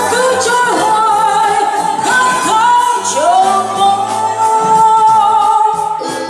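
A woman singing a pop song into a microphone, backed by a small live band with a keyboard. About three seconds in she slides up into one long held note that lasts until near the end.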